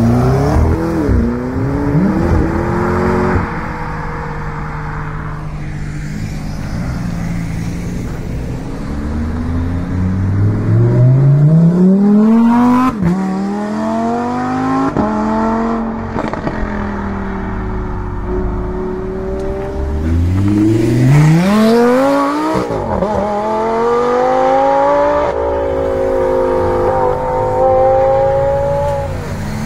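Supercars accelerating hard away one after another. A McLaren's twin-turbo V8 pulls away near the start, a Lamborghini Huracán's V10 about ten seconds in, and another car about twenty seconds in. Each time the engine pitch climbs steeply, then drops sharply at a gear change, and it settles into a steadier drone near the end.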